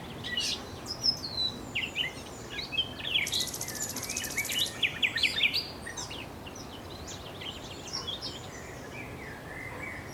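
Small wild birds chirping and twittering in quick, short notes over a steady background hiss, with a high, buzzy trill about three to five seconds in; the chirping thins out in the second half.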